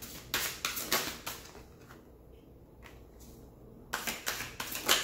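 A deck of tarot cards being shuffled by hand: a run of quick papery strokes in the first second, a quieter stretch, then another run of strokes from about four seconds in.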